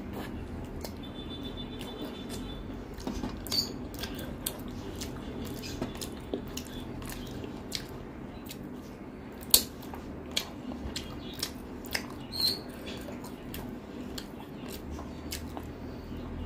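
Eating sounds: chewing and sucking at a piece of curried chicken held in the fingers, with wet mouth clicks and smacks scattered throughout and one sharper click about ten seconds in.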